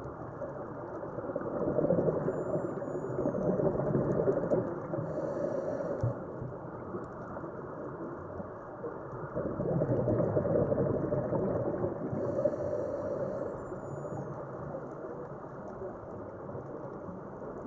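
Underwater recording of a scuba diver breathing through a regulator: two long swells of bubbling exhaled air, about eight seconds apart, each ending in a short high hiss as the regulator delivers the next breath.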